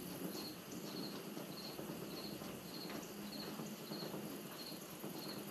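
Cricket chirping steadily, about two short high chirps a second, over a faint low hum and a few faint clicks of small parts being handled.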